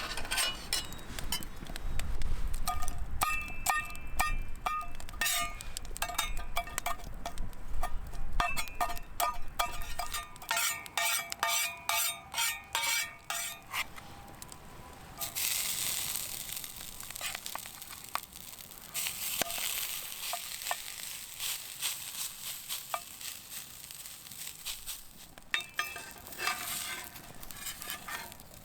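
Wagyu steak frying on a hot iron griddle over a campfire. Metal utensils repeatedly clink and ring against the griddle for about the first half. Then comes a steady sizzling hiss, with a few more clinks near the end.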